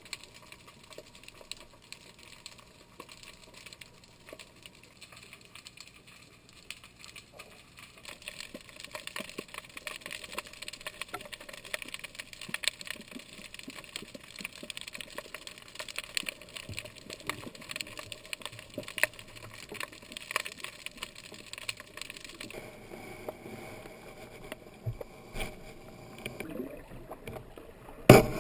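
Underwater ambience heard through a camera's waterproof housing: a steady crackle of fine clicks and water noise, with one loud sharp knock near the end.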